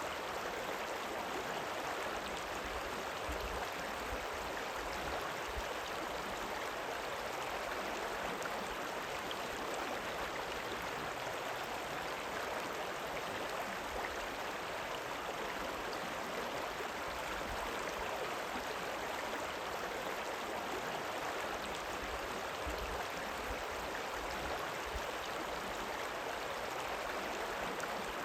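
River water rippling and running, a steady, even rush that does not rise or fall.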